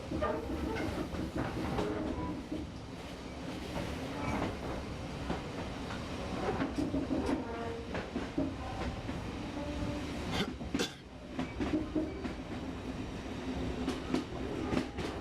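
Passenger train running along the track with a steady rumble, its wheels clicking over the rails.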